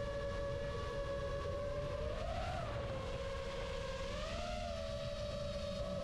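FPV racing quadcopter's brushless motors and propellers whining steadily, the pitch rising and falling briefly twice as the throttle is pushed, over a low rumble of wind.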